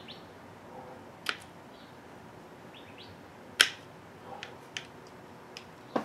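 Metal snips cutting thin fan wires: several sharp snips, the loudest about three and a half seconds in. Faint short bird chirps can be heard in the background.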